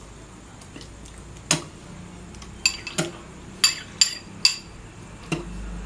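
Metal spoon clinking against a ceramic bowl while scooping noodles, about seven light clinks with a short ringing tone.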